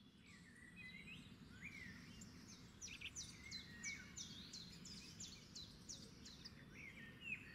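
Faint birdsong: a run of quick, high, downward-sweeping chirps, thickest through the middle, over a faint low background noise.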